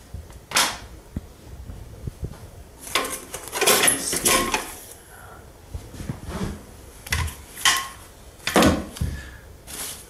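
Metal parts of a mitre saw stand clinking and scraping as they are lifted out of the box, mixed with rustling plastic wrap and polystyrene. This comes as a few irregular bursts, the longest about three seconds in.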